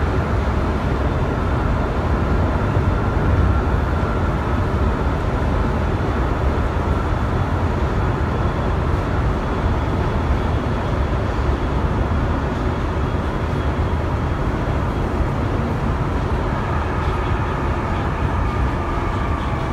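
Sapporo Namboku Line 5000-series subway train running, heard from inside the car: a steady rubber-tyred rumble, with a faint motor whine near the start and again near the end.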